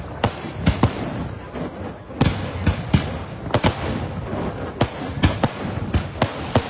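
Aerial firework shells bursting overhead in a dense, irregular barrage of sharp bangs, some coming in quick clusters of two or three.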